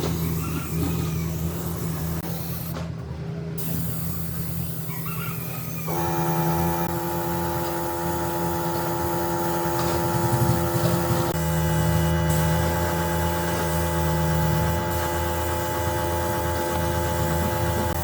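An electric motor running steadily with a low hum. About six seconds in, a higher whine made of several steady tones joins it and keeps going.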